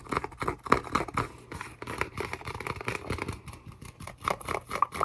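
Rapid, uneven tapping and clicking on a small handmade trinket, several taps a second.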